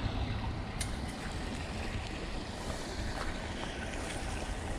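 Wind noise on the microphone, a steady low rumble under an even hiss.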